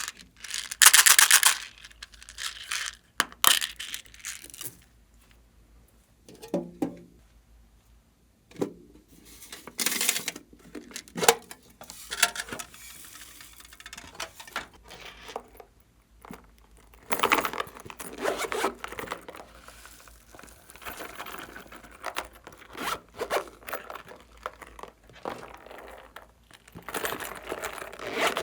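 Glossy slime squished and stretched by hand, giving irregular bursts of sticky crackling and tearing sounds with quieter gaps between. The loudest burst comes about a second in.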